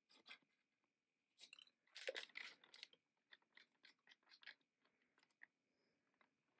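Small scissors snipping open a plastic pouch, then the pouch crinkling and crackling as it is squeezed out, loudest about two seconds in, followed by a run of smaller crinkles.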